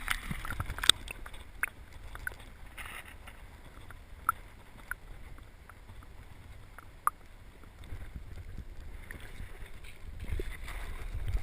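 Wind rumbling on the microphone, stronger near the start and again toward the end, with a few scattered sharp clicks and taps.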